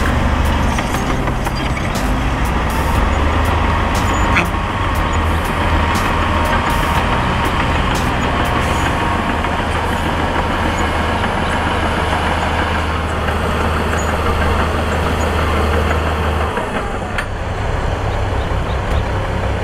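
Heavy diesel construction machinery running steadily, a low engine drone with scattered sharp clicks and knocks over it; the deepest part of the drone drops away about sixteen seconds in.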